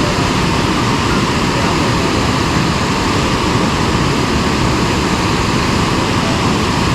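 Steady rush of water pouring through a dam spillway, a constant loud roar with no breaks.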